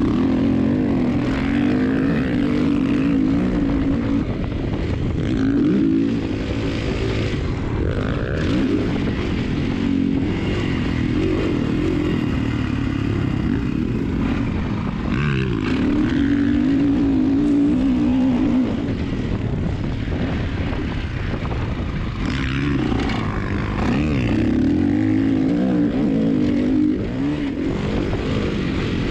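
Kawasaki KX motocross bike's engine heard on board while riding a dirt track, the revs climbing and dropping again and again through corners and gear changes. Several stretches are held at high revs, with a steady rush of wind over it.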